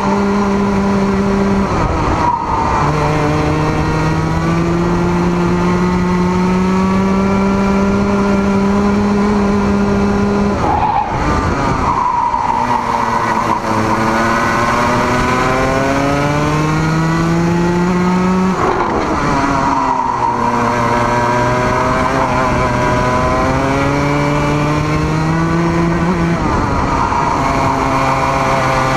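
Racing kart engine at speed, heard close from on board the kart: its pitch climbs slowly for several seconds at a time and falls sharply four times, as it comes off the throttle, over a steady hiss of wind and tyres.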